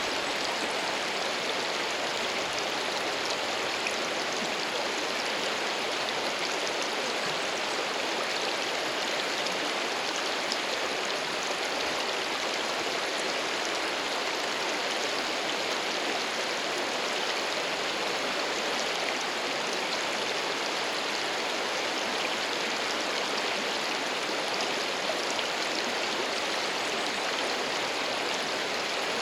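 Mountain stream water rushing steadily, with no frog call standing out.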